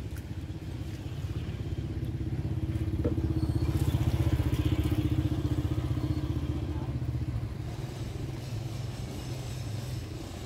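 Small motorbike engine running as it passes, growing louder to a peak about halfway through and then fading.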